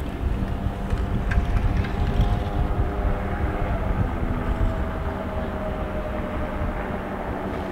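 A large engine running steadily: a deep rumble with a steady droning hum that grows a little stronger near the end.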